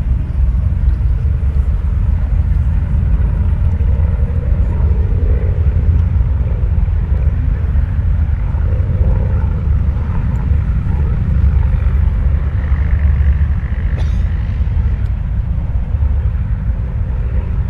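Steady low rumble with the drone of a Boeing Stearman biplane's radial engine as it flies overhead.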